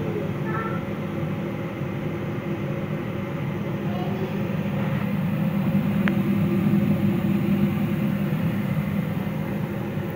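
Donuts deep-frying in a pan of hot oil: a steady sizzle and bubbling over a low, even hum. There is a single sharp click about six seconds in.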